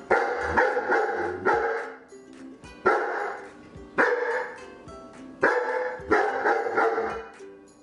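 A dog barking loudly, about eight single barks at uneven intervals of roughly half a second to a second and a half, over background music.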